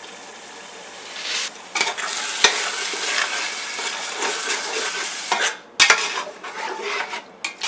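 A metal spoon stirring a sizzling masala of onions, tomatoes and curd in hot oil in a metal pot, scraping and clinking against the pot. A soft sizzle for the first second or so, then the stirring starts, with a few sharp clinks.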